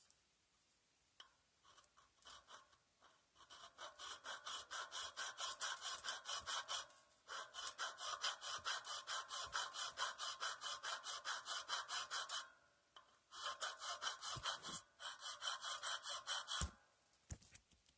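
Flat hand file rasping back and forth on the steel axle of an e-bike hub motor, about four or five strokes a second, in three runs with short pauses between them. A single knock comes near the end.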